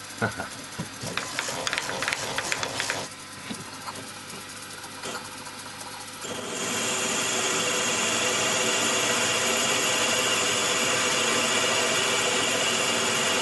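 A few clicks and metallic rattles of handling at the machine, then about six seconds in a benchtop mill-drill's spindle starts and runs steadily with a high whine while the 8.5 mm tapping drill for an M10 thread bores into the steel part.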